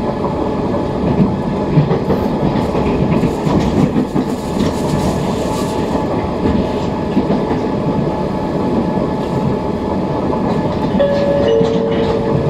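Electric commuter train on the Tobu Kinugawa Line running at speed, heard from inside the passenger car: a steady rumble of wheels on rails with irregular clicks. Near the end two steady tones sound together, the higher one starting slightly before the lower.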